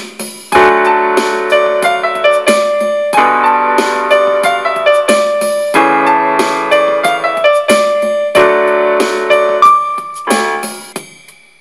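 Yamaha PSR-E243 portable keyboard played with both hands: held three-note chords in the bass, changing about every two and a half seconds, under a right-hand melody with quick triplet runs. The last chord fades out near the end.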